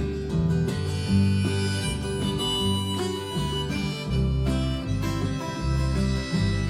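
Live country band's instrumental break: a harmonica plays a solo melody over acoustic guitar and a low moving bass line.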